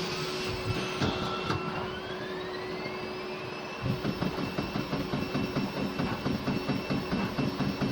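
CNC PCB drilling machine: a high spindle whine rises in pitch as it spins up, then, about four seconds in, even rapid drilling strokes start, roughly three to four a second, over the steady whine.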